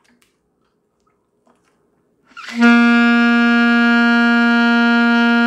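Alto saxophone sounding one long, steady note, the G fingered with three left-hand keys. It starts about two and a half seconds in, after a pause.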